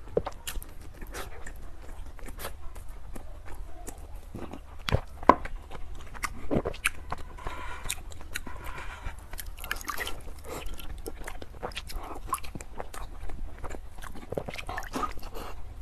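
A person chewing and biting soft cake and crumbly pastry close to a clip-on microphone, with many small wet mouth clicks and smacks. One much louder click comes about five seconds in.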